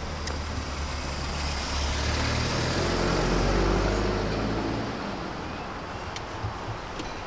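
An SUV driving past close by, its engine and tyre noise swelling for a few seconds and then fading, over steady street traffic noise.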